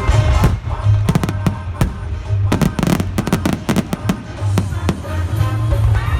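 Fireworks exploding in quick volleys of sharp bangs, in two dense clusters in the first half, over loud music from the show's soundtrack.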